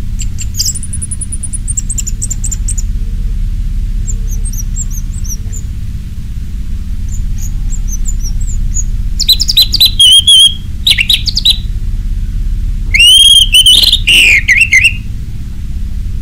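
Orange-headed thrush singing: faint high twittering early on, then two loud phrases of sliding, whistled notes, about nine and thirteen seconds in. A steady low hum runs underneath.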